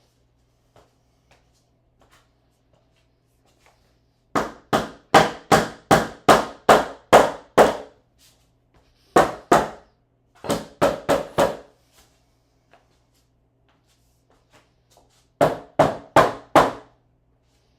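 Hammer blows in four runs: about nine steady strikes at roughly two and a half a second, then two, then four, then five, each a sharp ringing hit.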